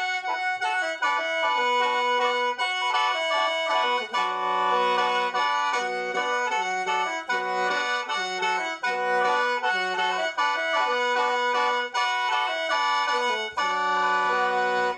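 Solo Lao khaen, a bamboo free-reed mouth organ, playing a traditional melody. Several reeds sound together as chords over a held high drone, and the lower notes change in a steady pulse.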